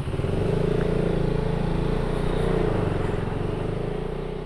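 Motorcycle engine pulling away and running steadily under light throttle, getting louder just after the start.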